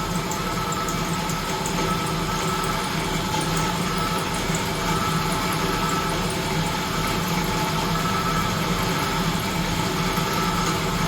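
Manual milling machine running steadily with an even hum while a 5mm carbide end mill is fed by hand, a little at a time, down through a Damascus steel knife blade to bore the pivot hole.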